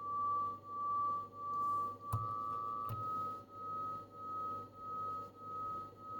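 Two tones from the Storno TS-G13's dual tone encoder set to nearly the same frequency, heard as one steady high tone that swells and fades about one and a half times a second: the beating between the two oscillators. About two seconds in a switch clicks and the pitch steps up slightly, the tone holds steady for under a second, a second click follows, and then the slow beating resumes.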